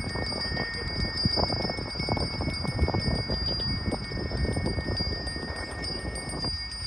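Metallic percussion of a Balinese procession gamelan: rapid, dense clashing of small cymbals with steady ringing metal tones held over it.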